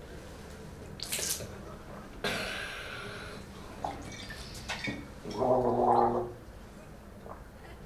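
A man takes a swig from a bottle and gargles it in his throat, a pitched bubbling gurgle lasting about a second after the swig.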